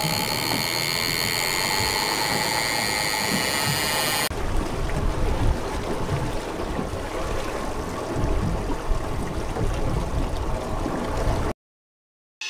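Outboard motor running steadily at trolling speed with a high whine over water noise. About four seconds in the sound changes abruptly to a rushing of wind and water with a heavy low rumble as the boat runs, and it cuts out to silence about a second before the end.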